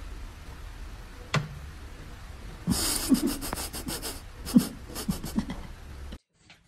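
A run of short breathy snorts and huffs, about a dozen over three seconds, over a low steady hum, after a single sharp click about a second and a half in; the sound cuts off near the end.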